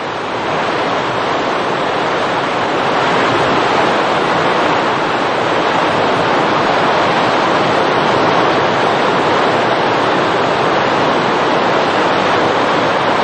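Flash-flood torrent rushing down a street: a loud, steady rush of water that swells over the first few seconds and then holds even.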